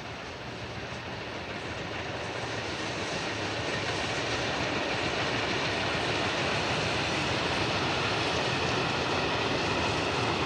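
Two steam locomotives double-heading a heavy freight train, their exhausts working hard. The sound grows louder over the first few seconds as the train approaches, then holds steady.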